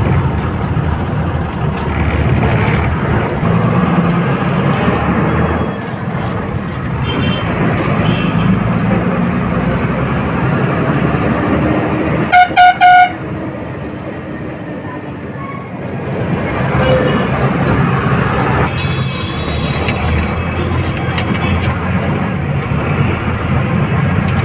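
Old Tata bus's diesel engine running, heard from inside the bus, easing off for a few seconds just past halfway and then pulling again. Halfway through, a vehicle horn gives two short blasts in quick succession, the loudest sound.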